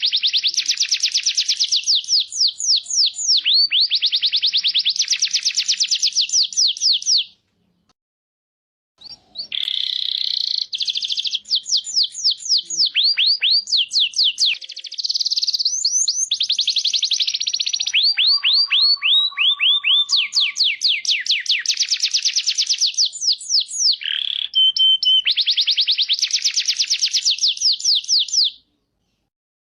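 Songbird song from a masteran training recording: long, rapid trills of down-slurred whistled notes, several to the second. One pause comes about a quarter of the way in, and the song stops shortly before the end.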